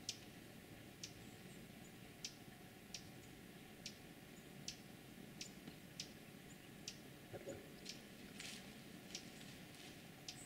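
Near silence, with faint, sharp high-pitched ticks about once or twice a second, unevenly spaced.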